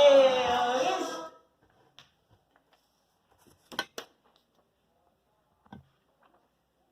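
A children's song stops abruptly on a sung word about a second in. Near silence follows, broken by two sharp clicks close together and a fainter click later.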